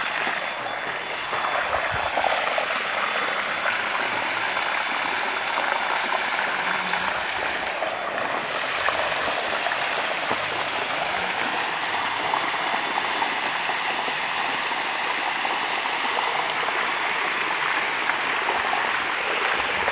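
Water gushing steadily from the open end of a borehole pump's discharge pipe and splashing across the ground. The pump is a 110 kW VALERGON submersible delivering its full flow.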